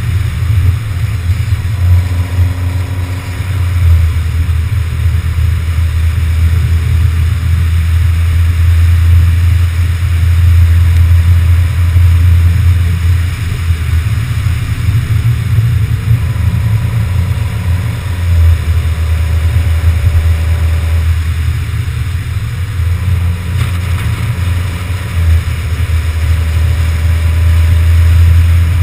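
A car driving at road speed, heard from a camera mounted on its body: a heavy low rumble of wind buffeting the microphone over road and engine noise, swelling and dipping without letting up.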